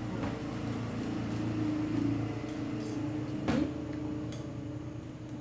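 A spoon stirring thick sweet potato cake batter in a glass bowl, with soft clicks and one sharp knock of the spoon against the bowl about three and a half seconds in, over a steady low machine hum.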